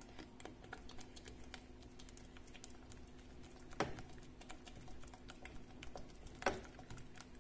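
Silicone spatula stirring a thick milk-and-egg-yolk mixture in a stainless steel saucepan: soft, irregular light taps and scrapes against the pan, with two louder knocks, about four seconds in and again about six and a half seconds in, over a faint steady hum.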